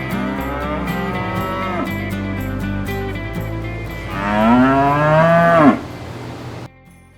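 Cattle mooing over soft background music: one moo about a second in, then a longer, louder moo that rises and falls in pitch. The sound drops away abruptly near the end.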